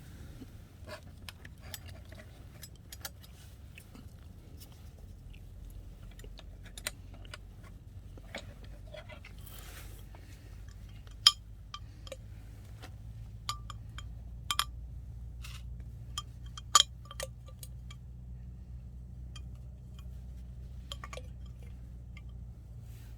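Coffee things being handled on a table: scattered light clinks and taps of cups, utensils and containers, with sharp knocks about 11 and 17 seconds in, over a low steady hum.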